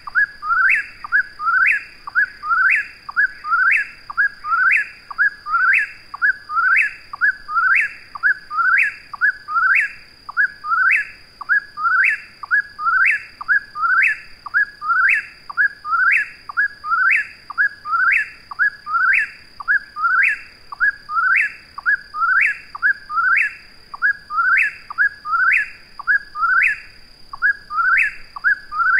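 Whip-poor-will (Caprimulgus vociferus) singing its whistled 'whip-poor-will' phrase over and over, about once a second, each phrase ending in a sharply rising note. A steady high-pitched tone sits underneath.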